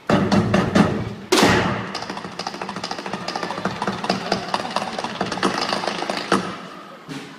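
Stage show percussion over the venue's sound system: two heavy hits, then several seconds of rapid, dense rattling clatter that slowly fades.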